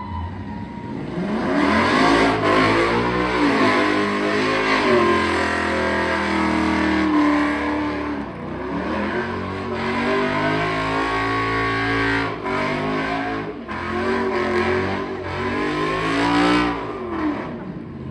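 Old pickup truck's engine revving hard during a burnout, the revs climbing and falling back again and again, with the rear tires spinning and screeching on the pavement.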